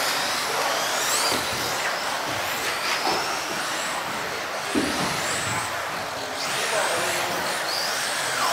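Radio-controlled offroad racing cars running on a track, their motors making several high whines that glide up and down in pitch as they accelerate and brake, over a steady rushing noise.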